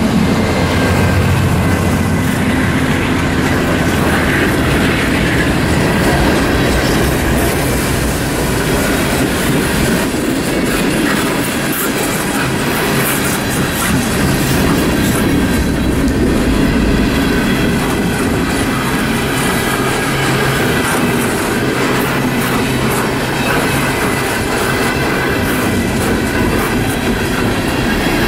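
Mixed freight cars of a long freight train rolling past at speed, wheels clacking over the rail joints with a faint high squeal. The locomotives' low engine hum fades out in the first couple of seconds.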